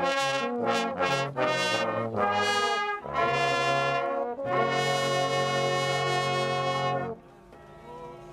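Brass band playing short phrases, then a long held closing chord that cuts off about seven seconds in, leaving a faint sustained tone.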